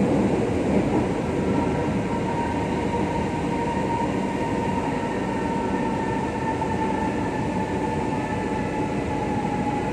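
Elevated metro train running, heard from inside the car: steady rumble and rail noise with a clear whine that slowly falls in pitch as the train slows.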